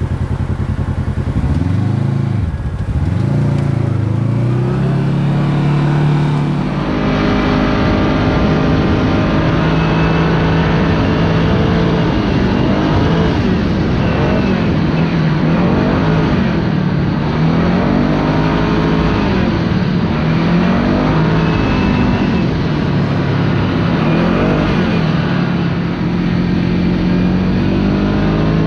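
Side-by-side UTV engine running under throttle, its pitch rising and falling over and over as the throttle is worked on and off, over a steady rush of noise.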